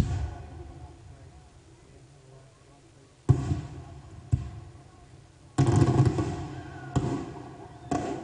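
Aerial fireworks bursting in a run of sharp booms, each trailing off with a rolling echo: one right at the start, another about three seconds in, a quick cluster just past the middle, then two more about a second apart near the end.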